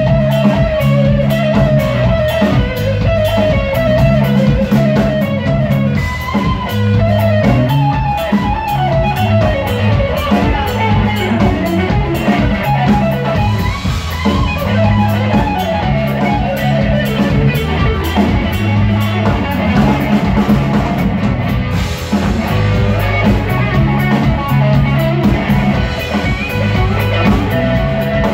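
Live band playing an instrumental stretch: an electric guitar leads with melodic runs over bass guitar and a drum kit.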